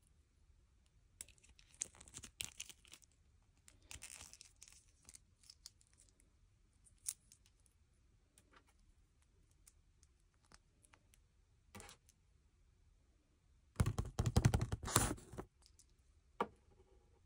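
A small plastic doll and its snap-on cape being handled by hand: soft scattered clicks and rustles, with a louder burst of crinkly rustling lasting about a second and a half near the end.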